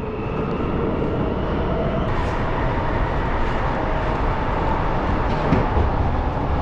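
Bucharest Metro train running through a tunnel, heard from inside the passenger car. There is a steady rumble of wheels on rails with a faint motor whine that rises in pitch as the train picks up speed after leaving the station.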